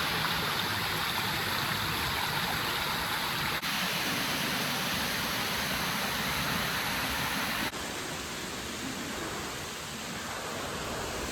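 Steady rush of flowing water, the sound changing abruptly twice, about three and a half and about eight seconds in, and a little quieter after the second change.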